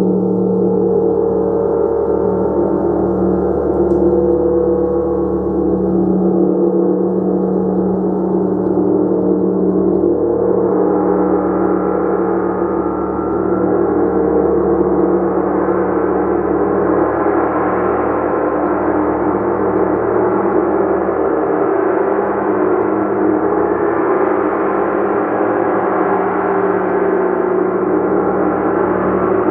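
Gong played continuously in a dense, sustained wash of many overlapping tones, swelling and growing brighter about ten seconds in.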